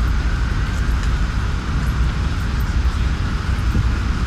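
Steady city street noise: a low traffic rumble under an even hiss, with no distinct events.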